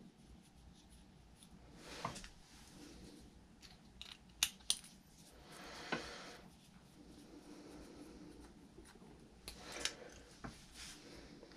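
Faint metal clicks and scrapes of a hex driver backing small Allen screws out of a Traxxas Velineon brushless RC motor's end bell, with a few sharp ticks of small parts set down in a parts tray, the loudest pair about four and a half seconds in.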